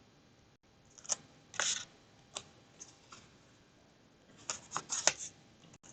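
Light taps and crinkles of scored cardstock pieces and tape being handled, a few scattered single clicks then a quick cluster of them near the end.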